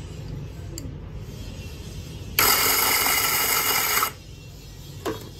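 Small electric coffee grinder motor and burrs running on beans at grind setting 8, starting suddenly about two seconds in and cutting off under two seconds later.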